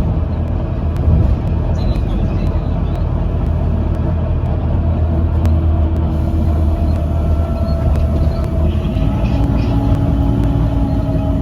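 Volvo B9TL double-decker bus under way, heard from on board: a steady low engine rumble with thin whining tones above it. About nine seconds in the rumble eases and a whine steps up in pitch and holds.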